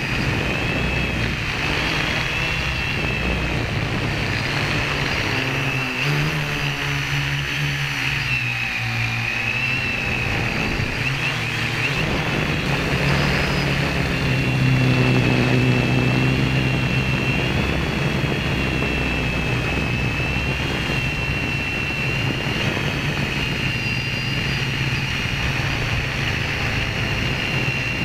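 Quadcopter's electric motors and propellers in flight, heard from the onboard camera: a steady high whine that wavers in pitch as the throttle changes, over a low hum, swelling a little louder about halfway through.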